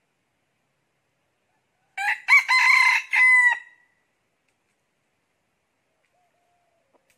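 A decoy rooster crows once, a single crow of just under two seconds beginning about two seconds in, against near silence. This is the kind of call played to lure wild junglefowl.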